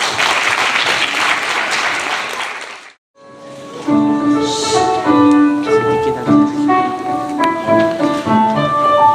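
Applause that stops abruptly about three seconds in, followed after a short gap by piano music, single notes and chords played at a moderate pace.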